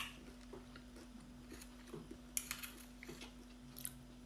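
Faint eating sounds: a metal spoon clicks and scrapes against an oyster shell as a raw oyster is scooped out, then soft wet mouth sounds as it is eaten. A steady low hum runs underneath.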